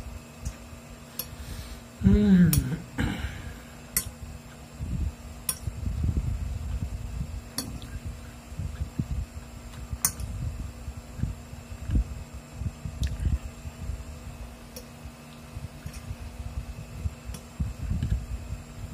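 Metal fork clicking and scraping against a glass plate, a dozen separate clinks spread out, with chewing and mouth sounds in between. About two seconds in, a brief low vocal sound that falls in pitch is the loudest moment.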